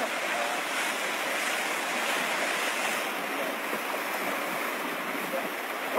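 Rough sea surf washing against rocks, a steady rush of noise.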